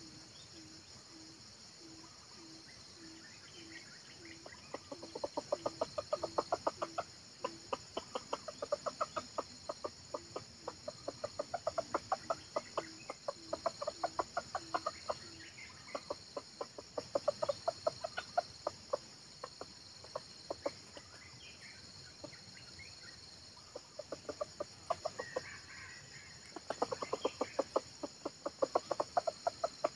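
Red junglefowl clucking in rapid runs of short, sharp calls, several a second, in bouts that start about five seconds in, pause briefly twice, and pick up again near the end. A low note repeats about twice a second through the first half.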